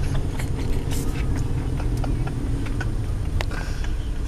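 Steady road and engine rumble inside a moving van's cab while driving, with a few light clicks and rattles scattered through it.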